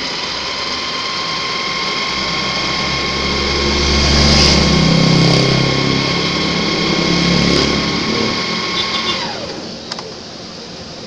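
Evercy electric sewing machine running, stitching a zigzag seam through denim: a steady motor whine with the needle's rapid chatter, louder in the middle. About nine seconds in the motor winds down with a falling whine and stops, followed by a few small clicks.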